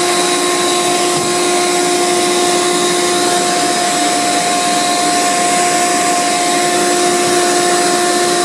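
Vacuum cleaner running steadily with a constant whine, sucking dust out of an oscillating fan's motor housing.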